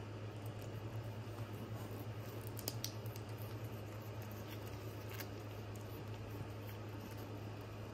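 A cat licking a paste treat from a stick pouch: quick, small wet licking and smacking clicks, over a steady low hum.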